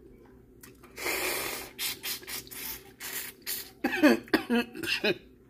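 A person eating a spicy seafood boil: a long hissing breath about a second in, then a run of short smacking clicks. A few short voiced sounds with rising and falling pitch come near the end, as the spice makes her choke and cough.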